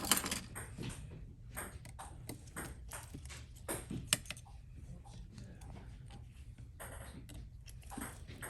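Small, irregular clicks and taps of hand tools against the parts of an opened iPhone 13 Pro Max, over a low steady hum.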